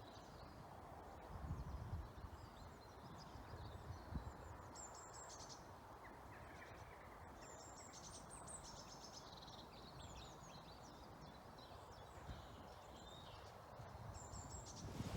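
Faint songbirds singing in spring woodland, with short, high, chirping phrases, over a low rumble of wind that gusts a couple of times.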